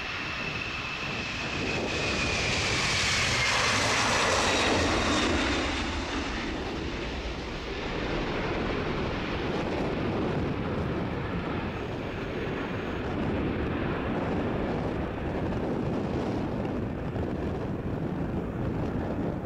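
Delta Boeing 767-300ER's two jet engines at takeoff power as it lifts off and climbs away. A high whine slides down in pitch over the first few seconds while the noise grows to its loudest about four seconds in, then it settles into a steady rumble.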